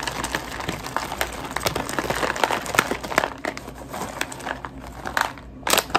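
Bag of chocolate melting wafers crinkling: a dense, irregular run of small crackles and clicks, with a pair of louder clicks near the end.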